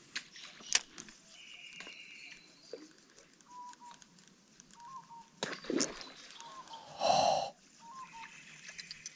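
Birds calling, with short whistled notes and one loud, harsh call about seven seconds in, plus a few sharp clicks.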